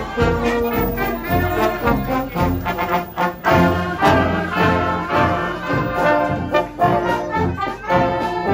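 Junior brass band playing as it marches past, trombones and trumpets carrying a tune over a steady beat.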